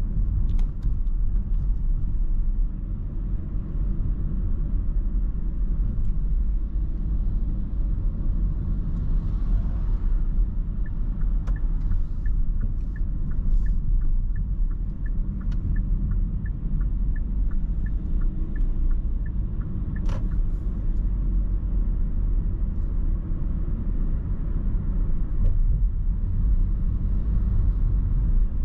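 Car driving, with a steady low road and engine rumble heard from inside the cabin. In the middle, light ticking at about two a second runs for several seconds, followed shortly by a single sharp click.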